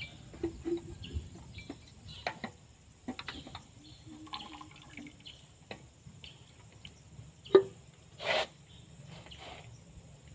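Hand tools working on metal tractor axle parts: scattered light clicks and knocks, with one sharp click about seven and a half seconds in and a short burst of hiss just after it.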